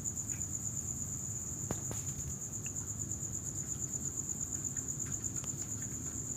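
Crickets chirping in a steady, fast pulsing trill, the loudest sound, over a low rumble, with a few faint crunches of a dog eating its food.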